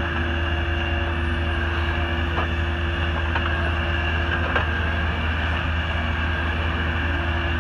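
SERCO 8500 knuckleboom log loader running under work: a steady engine drone with a constant whine over it. A few faint knocks come in the middle as the grapple handles logs.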